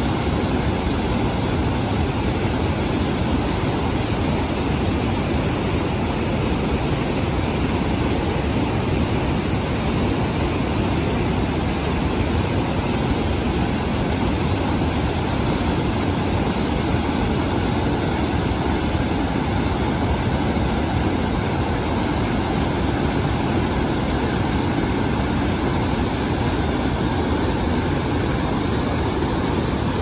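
Muddy Mekong River water churning over the Sopheakmit Waterfall rapids: a loud, steady roar of rushing whitewater, heaviest in the low rumble.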